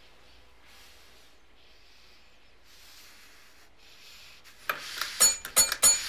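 Faint breathy puffs of noise, then a little over four seconds in a sudden, loud, fast run of ringing metallic strikes begins, about four a second.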